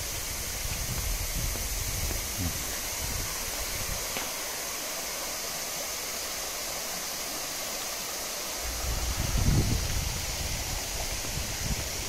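Steady rush of flowing stream water, with a low rumble rising about nine seconds in.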